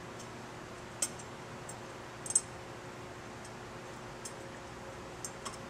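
A few small metallic clicks and taps as tiny screws are started by hand into a machined metal cheese-wedge cover on a motorcycle engine, the loudest about two and a half seconds in, over a faint steady hum.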